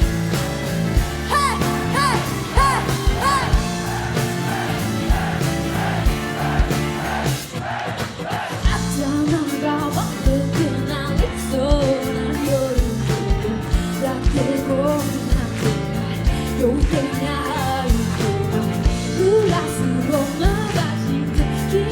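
Live band music from drums, bass, guitar and keyboards: a pop-rock song over a steady drum beat.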